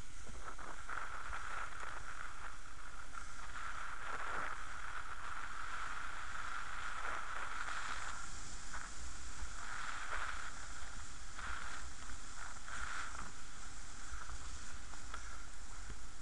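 Steady hissing rush of wind on the microphone of a skater-worn action camera at racing speed, mixed with the rolling of inline skate wheels on damp asphalt.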